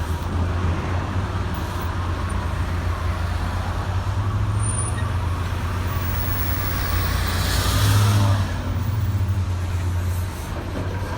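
Road traffic: the steady low rumble of passing cars and trucks, loudest as a vehicle passes close about eight seconds in.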